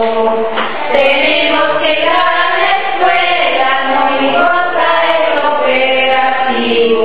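Background music: a choir of voices singing, holding each note for about a second before moving to the next.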